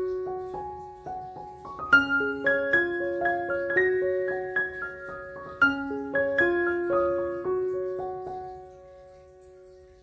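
Background piano music: a gentle melody of single struck notes that fades down near the end.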